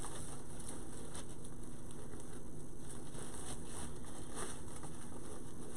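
Ribbon loops of a bow rustling and crinkling in scattered light bursts as they are fluffed and shifted by hand.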